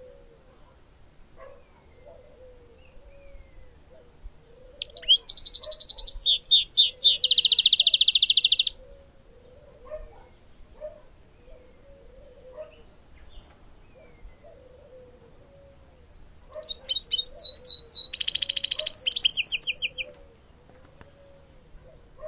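Caged goldfinch × canary hybrid (a 'bastard' or mule) singing two loud, high-pitched bursts of song, a few seconds each, made of fast trills and rapidly repeated notes.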